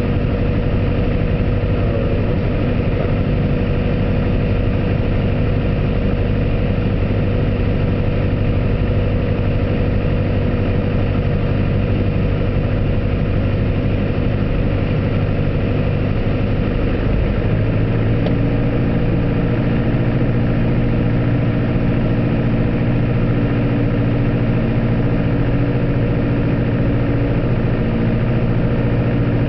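Piper Archer's four-cylinder Lycoming engine and propeller droning steadily, heard from inside the cockpit. About two-thirds of the way through, the engine note steps up slightly in pitch and holds at the higher speed.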